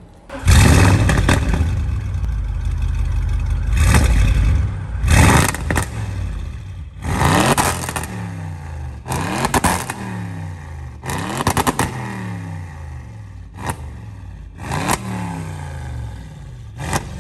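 Audi RS6 Performance's V8 revved hard while parked through its loud exhaust. It comes in with a loud flare about half a second in, then gives a series of sharp rev blips, each one crackling and popping at the top before the revs fall away.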